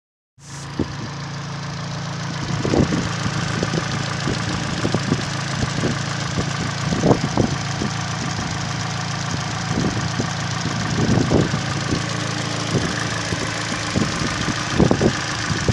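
Kia Cerato 1.8-litre DOHC 16-valve four-cylinder petrol engine idling steadily, with short low rumbles on the microphone now and then.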